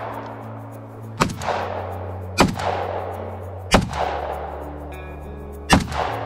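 Four gunshots, unevenly spaced, each followed by a long echoing decay, over steady background music.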